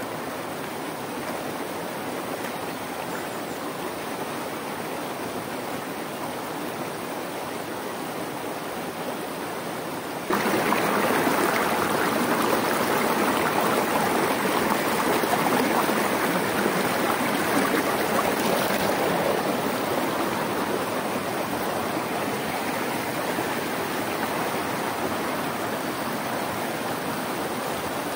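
River water flowing, a steady rush that jumps suddenly louder about ten seconds in and then slowly eases off.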